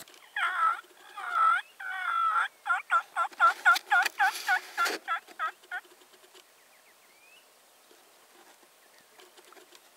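Wild turkey calling: three drawn-out warbling notes, then a quick run of about fourteen short notes at about four a second, ending around six seconds in.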